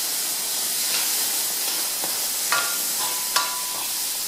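Diced celery, carrot and leek with tomato paste sizzling steadily as they roast in a hot pan, stirred with a utensil. Twice in the second half, the utensil knocks against the pan with a short ring.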